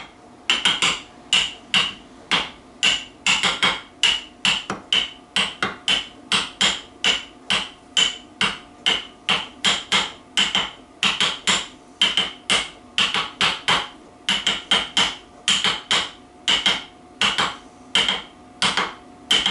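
A hammer tapping steadily on the BSA B25 crankshaft assembly, about two to three blows a second, knocking a part of the crank into position for alignment.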